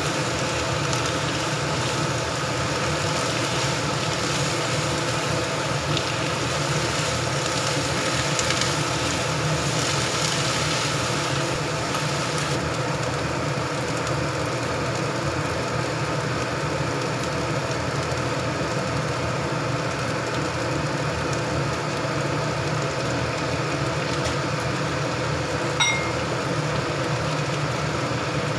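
Sliced shiitake mushrooms, onion and bell peppers sizzling in a nonstick wok over a steady machine hum. A spatula stirs and tosses the vegetables in the first part, and the hiss thins out about halfway through. A short high beep sounds near the end.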